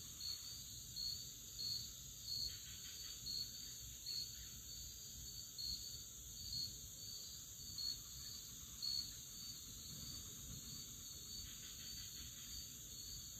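Insects chirping steadily: a high chirp pulsing about twice a second over a continuous higher buzz.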